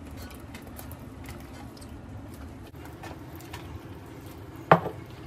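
Wooden spoon stirring chicken and vegetables into a thick cream sauce in a metal saucepan, with faint scraping clicks and one sharp knock near the end.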